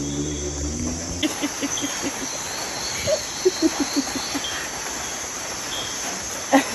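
Night insects trilling steadily in a high, unbroken band, with a run of short chirps between about one and four seconds in and one brief sharp sound near the end.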